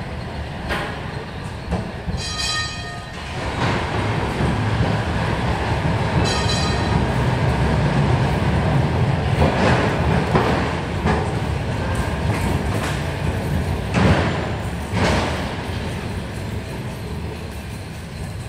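Tram rolling slowly on rails as it is towed: a low rumble of wheels on track that builds up and then fades toward the end, with two brief high squeals in the first seconds and a few sharp knocks in the second half.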